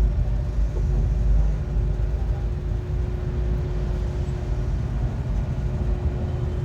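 Steady low rumble with a constant faint hum, without breaks or distinct knocks.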